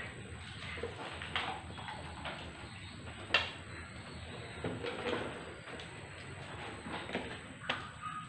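Scattered clinks and knocks of plates, cups and utensils during a meal, the sharpest about three and a half seconds in, over a steady low background noise.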